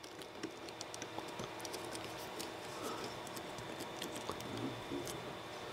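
Faint, scattered small clicks and rustling as fingers work a flat cable's plastic connector and braided sleeve into the print head of a Creality Ender 3 V3 SE 3D printer.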